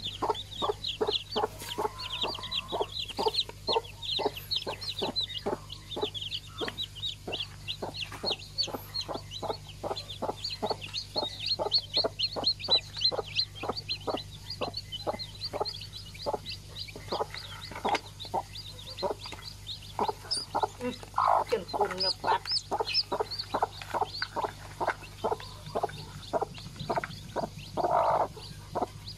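Newly hatched chicks peeping rapidly and without pause, a steady run of short high peeps several times a second. A broody hen clucks low now and then, louder toward the end.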